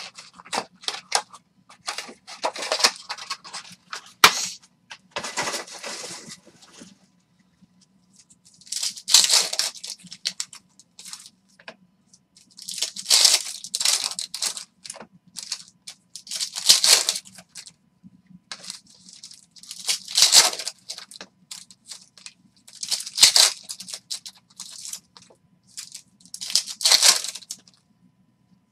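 Foil trading-card packs torn open and their wrappers crinkled by hand: a quick run of short crackles, then crinkling rustles about every three to four seconds.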